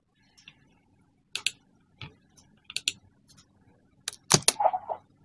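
Computer mouse buttons clicking sharply, several times in quick pairs like double-clicks, the loudest clicks near the end.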